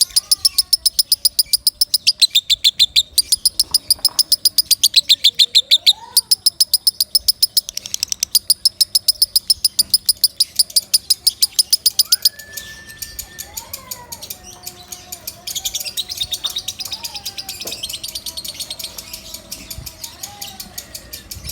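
Lovebird giving its loud, rapid chattering song: a long run of sharp high chirps, about eight a second with a few short breaks, that stops abruptly about twelve seconds in and gives way to softer chirping.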